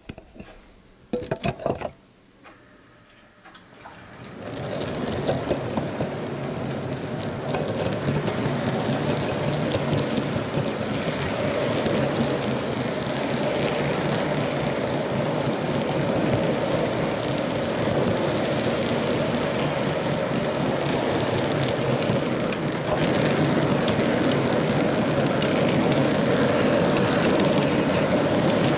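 HO scale model freight train running, heard from a small camera riding on one of its cars: a steady rolling, clattering noise of the little wheels on the rails that starts about four seconds in and gets a little louder near the end. Before it, a few sharp knocks of the camera being handled and set down.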